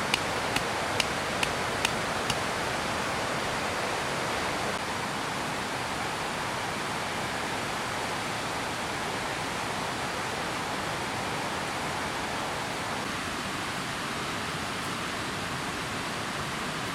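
Heavy rain falling in a steady hiss. A few sharp ticks come about twice a second in the first two seconds.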